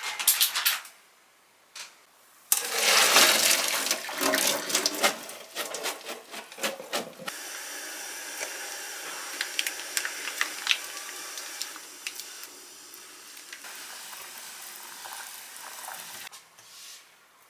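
Water in a saucepan on the stove: a few seconds of loud splashing and sloshing, then the steady bubbling hiss of boiling water with small plops and clinks as sausages go in to blanch.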